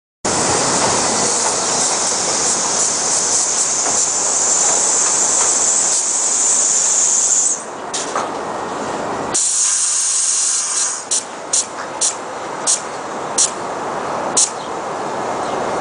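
R68 subway train arriving at an elevated station: a loud rush of wheels on rail with a strong high hiss, which drops off about seven and a half seconds in. As the train slows to a stop, a run of sharp clicks comes further and further apart.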